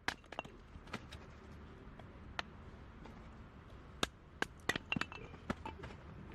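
Irregular sharp knocks and clinks of hard objects being handled and set down, about a dozen, with a cluster of them around four to five seconds in.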